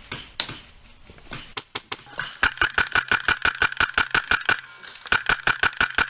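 Airsoft gun firing: a few single shots, then from about two seconds in a fast string of sharp cracks, about eight a second, broken by a short pause and starting again.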